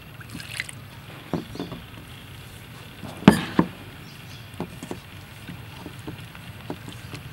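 Hands mixing and kneading rice flour in a stainless steel bowl: soft rubbing and scrunching of the flour, with scattered taps of fingers against the metal. The loudest knock comes about three seconds in, with a second soon after.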